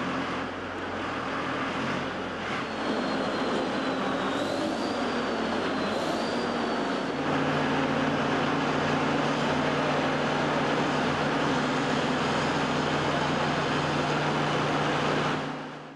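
Diesel engines of heavy vehicles and earth-moving machinery running steadily, a dump truck and then a wheel loader and excavator; the low engine hum shifts pitch about seven seconds in. The sound fades out near the end.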